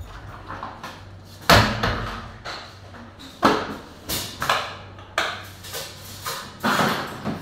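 Aluminium kitchen cabinet doors being swung and knocked open and shut, giving a series of sharp knocks at uneven intervals. The loudest comes about a second and a half in.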